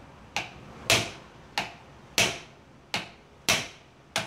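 Hammer striking the outer CV joint of a GMC Acadia front axle clamped in a vise, knocking the joint off the axle shaft. Seven sharp metal-on-metal blows come about every two-thirds of a second, each with a brief ring.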